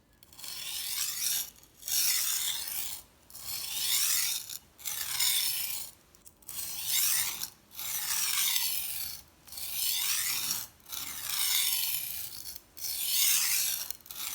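A knife blade being stroked across the wet coarse stone of a Wüsthof Tri-Stone sharpener: a gritty scraping, about nine long strokes, each a second or more, with short pauses between.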